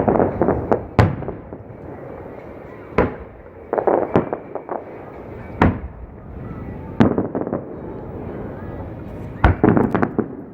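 Aerial fireworks bursting: sharp bangs every second or two, some coming in quick clusters of several reports, each with a short echoing tail.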